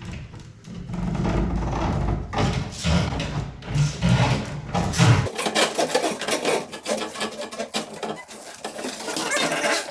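Wood scraping and rubbing, with many small knocks, as items are fed through a hole in a wooden cabinet. A low rumble underneath cuts off about five seconds in.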